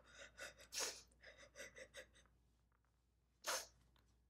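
A woman crying: a run of short, shaky sobbing breaths for about two seconds, a pause, then one loud sharp breath near the end.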